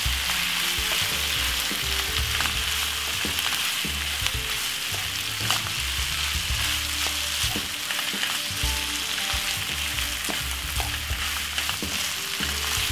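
Rice, saltfish and chopped vegetables frying in a frying pan with a steady sizzle, while a wooden spoon stirs and scrapes through them with scattered light ticks against the pan.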